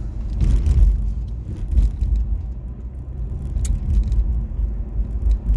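Car driving along a road, heard from inside the cabin: a steady low rumble of road and engine noise, with a brief tick about three and a half seconds in.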